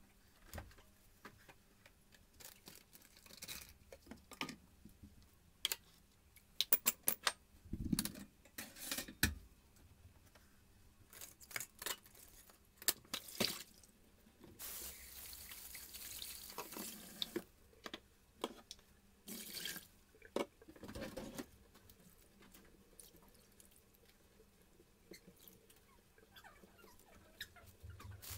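Dishes being hand-washed at a kitchen sink: scattered clinks and knocks of plates, cutlery and a metal pot. About halfway through, a tap runs for a few seconds.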